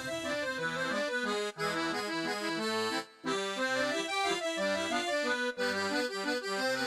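Background music: a lively tune whose melody moves in short stepping notes, breaking off briefly about three seconds in.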